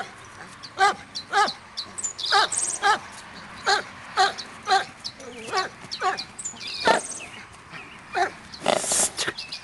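Short, pitched animal calls repeated about twice a second throughout, with a brief burst of noise about nine seconds in.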